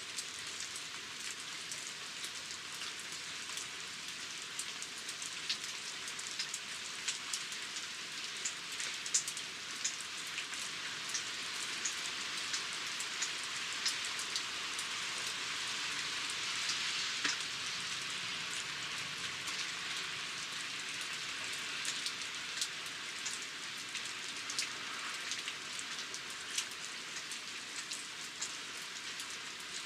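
Steady rain falling, an even hiss dotted with many sharp ticks of individual drops landing close by, swelling a little about halfway through.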